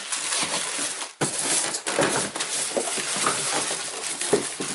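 Packaging being handled and pulled about: continuous rustling and crinkling with irregular small clicks and light knocks, a sharper knock just after a second in.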